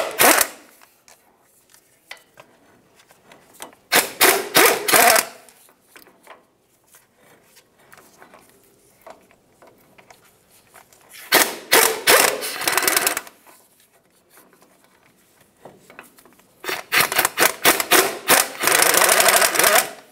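Impact wrench hammering in short bursts, spinning out the 15mm bolts that hold the front axle shaft to the differential. Four bursts with pauses between them, the last and longest near the end.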